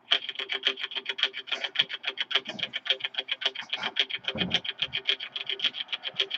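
Music starting abruptly: a fast, evenly repeated run of notes.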